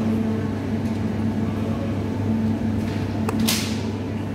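Steady low hum of supermarket refrigerated meat cases and air conditioning. A click and a short swish come about three and a half seconds in.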